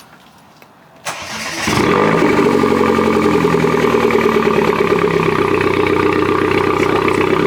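Mini Cooper S R56's 1.6-litre turbocharged four-cylinder engine cold-started about a second in. The starter cranks briefly, then the engine catches and idles steadily. A new coil pack has just been fitted to cure a cylinder 3 misfire.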